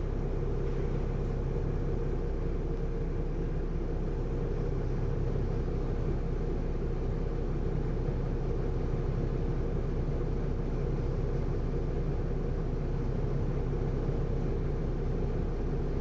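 Volvo B7RLE bus's six-cylinder diesel engine idling steadily, heard from inside the passenger saloon as an even, low drone.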